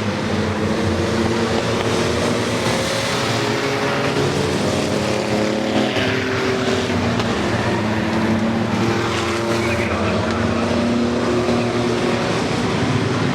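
A field of enduro race trucks running laps on a short oval, with many engines heard at once. Their overlapping pitches drift slowly up and down over a steady rush of noise.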